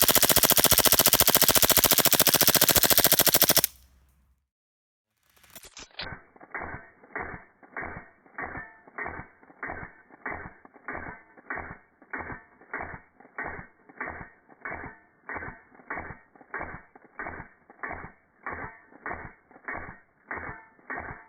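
Airsoft Glock gas-blowback pistol fed by an HPA drum magazine firing a full-auto burst for about three and a half seconds, then cutting off. After a short silence comes a steady, even clacking beat, about two a second.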